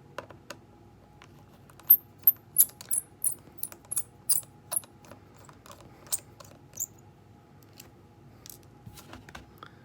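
Small sharp clicks and ticks of a precision screwdriver and small metal phone parts being handled as a smartphone is taken apart. There is a quick run of about three clicks a second between two and five seconds in, then scattered single clicks.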